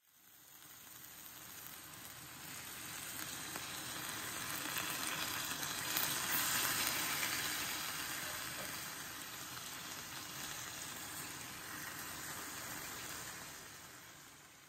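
Marinated beef galbi frying in a cast iron pan, sizzling steadily. The sizzle swells gradually to its loudest about halfway, then fades away near the end.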